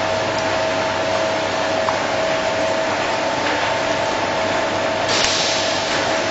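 Production-line machinery running with a steady noise and a constant whine, a few light clicks, and a short, louder hiss about five seconds in.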